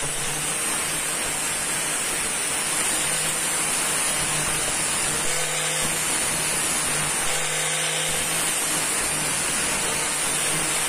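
Electric angle grinder running steadily at full speed, with the end of a thin metal rod held against its spinning abrasive disc to grind it into a soldering-iron tip.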